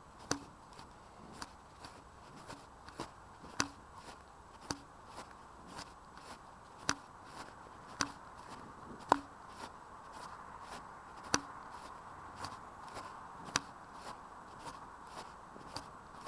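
Footsteps of a person walking, a sharp crunching step about twice a second, over a faint steady hiss.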